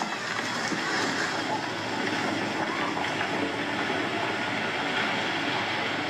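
Steady, loud rumbling roar of rockfall and shaking rock on a mountain ridge during an earthquake.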